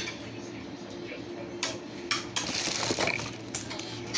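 A gimbal's clear plastic packaging tray being handled: a few sharp plastic clicks and taps, with a crinkling rustle about halfway through, over a steady low hum.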